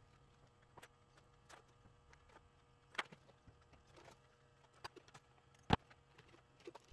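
Scattered small clicks and taps of hands handling the wires and plastic connectors of a wiring harness on a motorcycle gauge cluster. A sharper knock comes about three seconds in and the loudest one near the end, over a faint steady hum.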